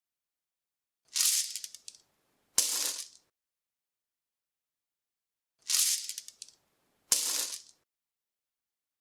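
Something small and hard rattling, shaken in short bursts of under a second. There are four bursts in two pairs, about a second and a half apart within each pair, and each second burst starts with a knock.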